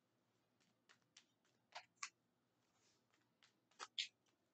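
Faint clicks and taps of tarot cards being handled: a few light single clicks, then two pairs of slightly louder snaps, one about two seconds in and one near the end.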